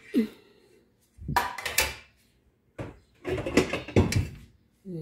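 A kitchen cupboard being rummaged: wooden cabinet doors knocking and a metal cooking pot clattering, in several separate bursts.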